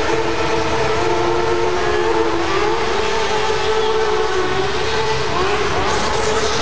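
Motorcycle engines held at high revs, a steady high engine note that rises and dips slightly; in the first moments one bike is doing a smoking rear-wheel burnout.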